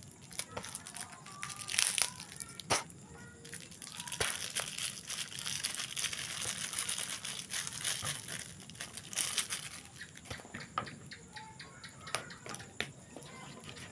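Plastic bait packet crinkling and rustling as it is handled, opened and squeezed out over a plastic bowl, with scattered sharp clicks. Toward the end, a plastic spatula scrapes and stirs the dough-like bait mix in the bowl.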